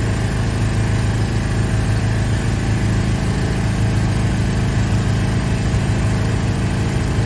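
An engine running steadily at a constant speed, with no change in pitch, as a shipping container is lowered on a container trailer's hydraulic lift arm.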